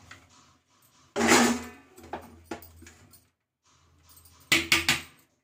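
Plastic food-processor bowl being tipped and knocked over a steel plate to empty out grated carrot: a clatter about a second in, a few light knocks, then a quick run of about four sharp knocks near the end.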